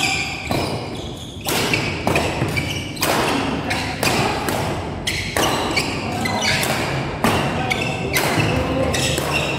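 Badminton doubles rally: rackets striking the shuttlecock in quick exchanges, sharp cracks about one to two a second.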